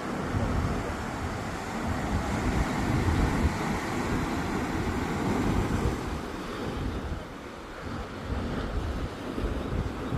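Sea waves surging and breaking against a rocky shore, with wind buffeting the microphone. The surf swells louder in the first half and eases off about seven seconds in.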